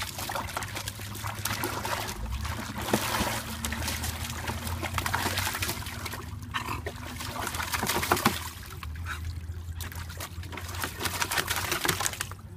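A dog splashing in a shallow plastic kiddie pool, water spraying and sloshing against the pool's sides. The splashing comes and goes, with a couple of short lulls.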